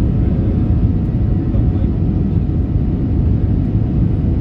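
Airliner cabin noise: a steady low rumble of the engines and wheels as the plane rolls along the tarmac, heard from inside the cabin.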